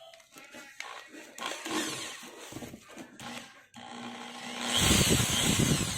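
Handling clatter, then an INGCO electric drill started on its variable-speed trigger: a low steady motor hum begins a little before four seconds in, and the motor runs up loud about a second later.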